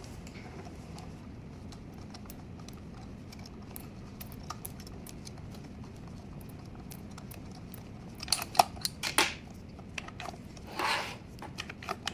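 Faint room tone, then a quick run of sharp clicks and knocks about eight seconds in, followed near the end by a short rasping rush.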